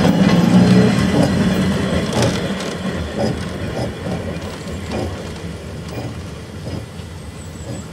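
Small narrow-gauge diesel locomotive running past at low speed and moving away, its engine fading steadily. The wheels knock over rail joints at intervals as it goes.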